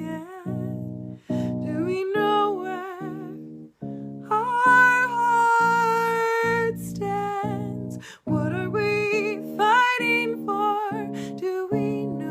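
Song intro: a female voice singing wordless held notes with vibrato over a picked guitar.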